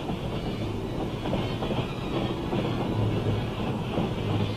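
Freight cars rolling slowly along the rails, a steady rumble and rattle with a low hum under it.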